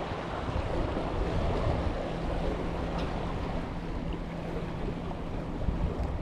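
Wind buffeting the microphone over the steady wash of sea water, with a faint steady low hum underneath.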